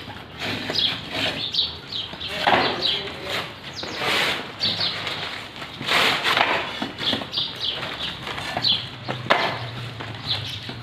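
Hollow clay bricks being handled and set down on a wall, giving irregular knocks and scrapes, with small birds chirping repeatedly in the background.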